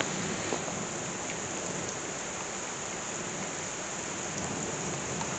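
Heavy downpour: a steady, even hiss of rain falling on rooftops.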